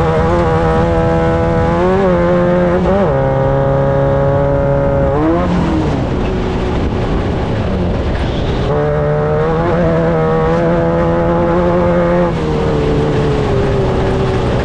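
Off-road desert race vehicle's engine running hard at high revs, its pitch holding steady for stretches and dropping sharply about three seconds in, again about five seconds in, and near the end, then climbing back each time.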